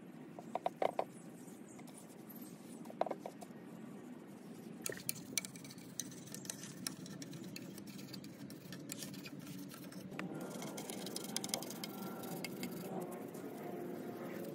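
Faint rubbing and scattered small taps as a gloved hand wipes a painted wooden chair with a damp rag and scrubs between the spindles with a small brush, washing it down with TSP cleaner before sanding. A low, steady background noise runs underneath.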